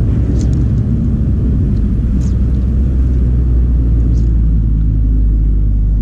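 A loud, steady low rumble, with a few faint high ticks about half a second, two seconds and four seconds in.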